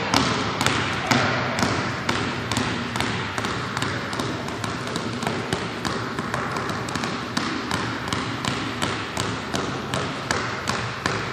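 Two basketballs dribbled at once by a young child on a hardwood gym floor: a steady run of bounces, about two to three a second, echoing in the gym.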